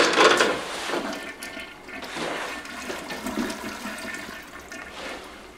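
Toilet flushing, loud at first and then fading as the water drains away.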